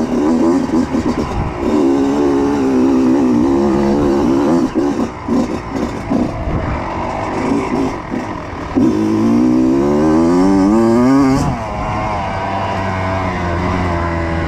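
Kawasaki KX85 two-stroke dirt bike engine running under a changing throttle. About nine seconds in, it revs steadily higher for a couple of seconds, then drops off suddenly and settles into a lower, steady run.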